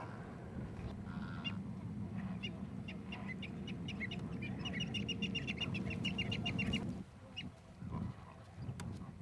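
A flock of flamingos calling, a goose-like chatter over a steady low rumble, with a quick run of short high notes from about two and a half to seven seconds in.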